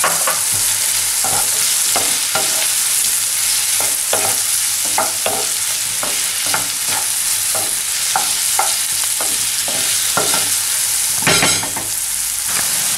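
Diced courgette sizzling in oil in a frying pan, with a steady hiss, while a wooden spoon stirs it, scraping and knocking against the pan about twice a second; one louder scrape comes near the end.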